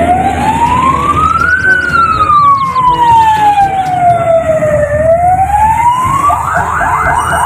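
Ambulance siren: a slow wail rising and falling, which about six seconds in switches to a fast yelp of about five sweeps a second.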